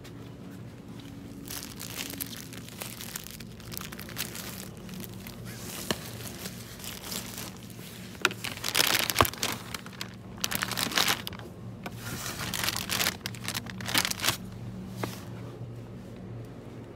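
Packaging crinkling and rustling as it is handled, in irregular bursts that are loudest in the second half, over a steady low hum.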